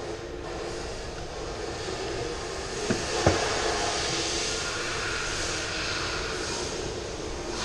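Steady machine-like rushing noise with a low hum, and two sharp clicks close together about three seconds in.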